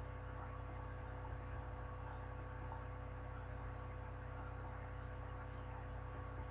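Faint steady electrical hum with low background noise: room tone in a pause between speech.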